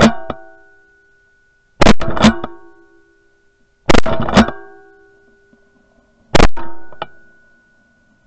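Music: four loud, sharp hits about two seconds apart. Each is a quick cluster of strikes followed by ringing chord tones that die away over a second or so.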